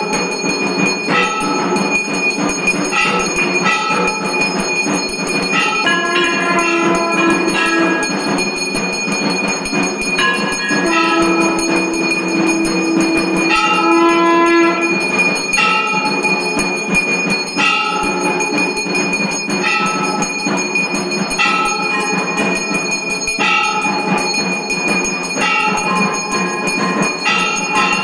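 Temple bells ringing continuously during aarti, with a steady high ringing and struck bell notes about once a second; a low held tone sounds twice in the middle.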